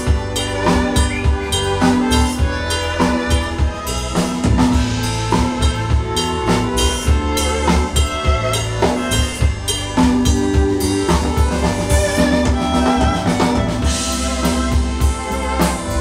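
Live band playing an instrumental passage: a drum kit keeps a steady beat under keyboard and electric bass.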